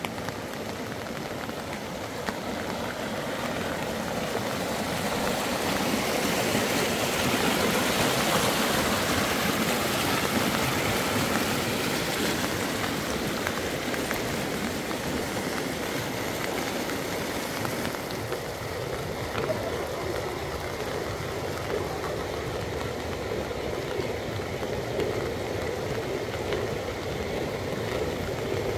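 Steady rush of running water, growing louder over the first several seconds and then holding.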